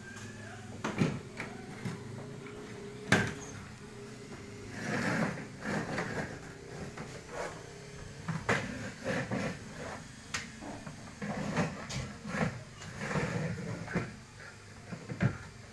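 Irregular knocks, clunks and rustling, with one sharper knock about three seconds in.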